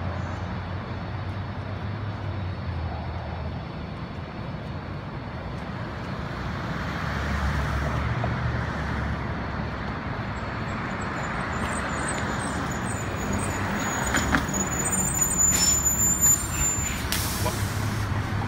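New Flyer D60LF articulated diesel bus approaching and pulling up to the curb, its engine a steady low drone that grows louder. In the last third, a high brake squeal and short air-brake hisses as it comes to a stop.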